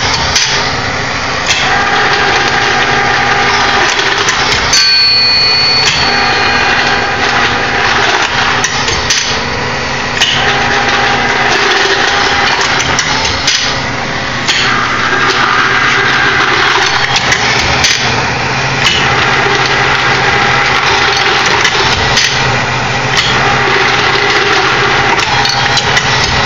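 Home-built automated brass annealer running. Small motors drive the case feed, advance and spin, over the steady hiss of propane torches. Metallic clicks and clunks come as brass cases are fed and moved on, with the machine cycling about every four seconds per case.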